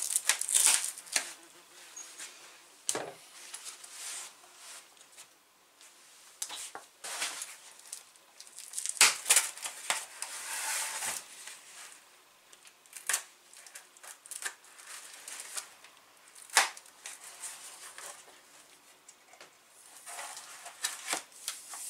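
Rustling and crinkling of packing material with scattered clicks and knocks as the parts of a disassembled road bike are unwrapped and handled, busiest about nine to eleven seconds in.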